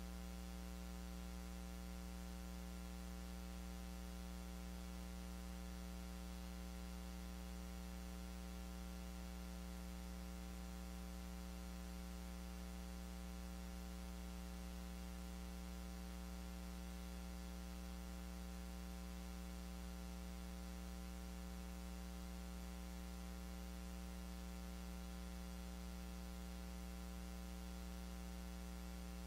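Steady electrical mains hum with a faint hiss and nothing else audible: interference picked up in the recording's audio line.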